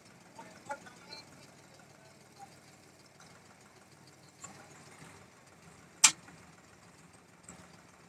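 Tractor engine idling faintly and steadily, with a few light knocks and one sharp knock about six seconds in.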